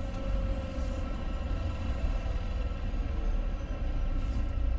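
Semi truck's diesel engine running steadily with a low rumble.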